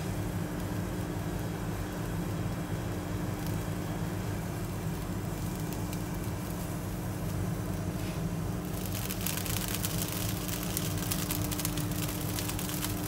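Gas burner flame running steadily under a small lidded pan, with a steady low kitchen hum. About nine seconds in, a crackling sizzle starts as the lid comes off and the broth and egg around the pork cutlet bubble hard.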